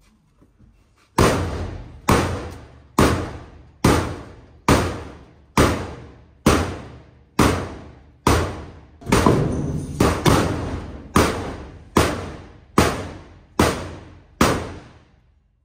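Big hammer striking the steel back panel of a Renault T460 truck cab, about one heavy blow a second, each hit ringing and dying away. The blows are meant to split the drilled-out, sealer-bonded panel away from the cab.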